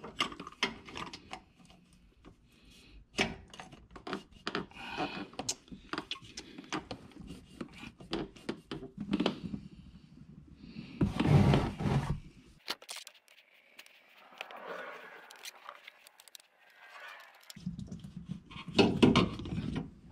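Scattered clicks, knocks and scrapes of hands and a spin-on oil filter against the car's underside, with a louder bout of scraping about eleven seconds in. The filter is the wrong one and will not thread on.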